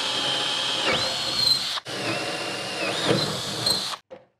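Cordless drill with a large bit boring into wood: a steady motor whine that rises in pitch about a second in, cuts off for a moment just under two seconds in, then runs again and stops about four seconds in.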